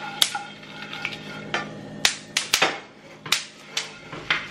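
Pumpkin seeds toasting in a dry ceramic-coated frying pan, stirred with a wooden spoon: irregular sharp clicks and pops of the seeds and the spoon against the pan.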